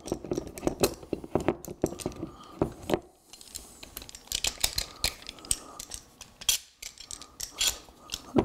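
Small metal bar clamp being slid and tightened on a wooden molding: irregular clicks and knocks of the jaw moving along its steel bar and the handle being turned, with wood knocking against wood.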